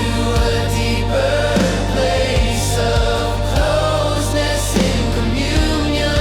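Christian worship song playing: a sustained low bass under a gliding melody line, with occasional beats.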